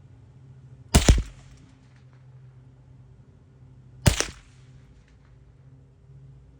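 Two single shots from a Mossberg International 715T .22 LR semi-automatic rifle, about three seconds apart, each a sharp crack with a short trailing echo.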